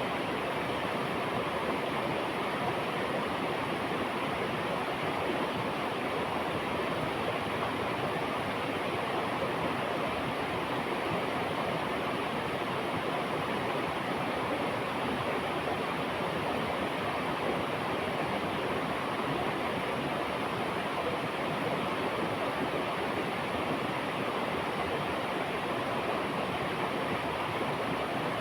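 River water rushing steadily over rocks, an even unbroken flow.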